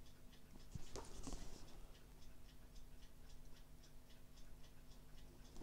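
Faint, steady ticking, about three ticks a second, with a brief soft rustle of a paper chapbook being handled about a second in.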